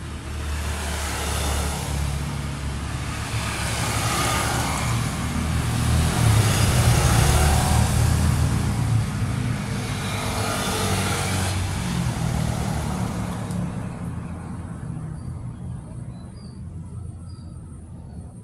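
Road traffic passing on the street: engine rumble and tyre noise swell to a peak about halfway through and fade away near the end.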